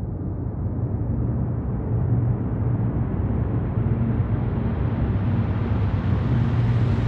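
Space-style riser sound effect: a deep rumbling drone with a low hum underneath, swelling in loudness as its noise sweeps steadily upward and grows brighter.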